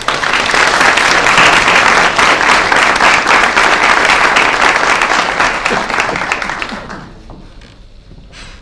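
Applause: many people clapping at once, dense and loud, dying away about seven seconds in.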